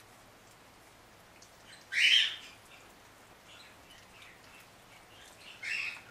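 Shih Tzu puppies squealing: a short, loud, high-pitched squeal about two seconds in and a second weaker one near the end, with a few faint squeaks between.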